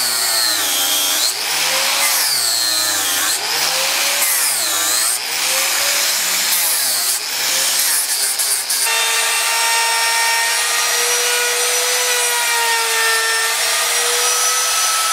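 Electric angle grinder with a sanding disc working a wooden carving, its motor whine dipping and rising about every two seconds. About nine seconds in it changes abruptly to a power tool whining at a steady pitch.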